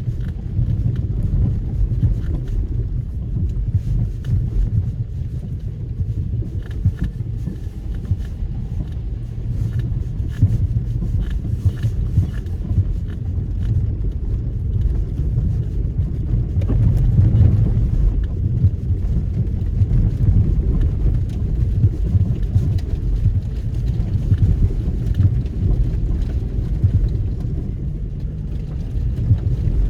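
Nissan X-Trail T30's 2.0-litre four-cylinder petrol engine and tyres driving slowly off-road. It makes a steady low rumble with faint knocks and rattles, swelling a little past the middle.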